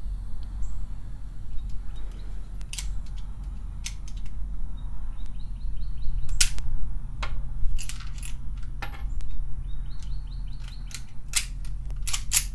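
Sharp clicks and cracks at a pistol range, about a dozen at irregular intervals, the strongest in the middle and near the end, over a steady low hum. They fit gun handling and shots.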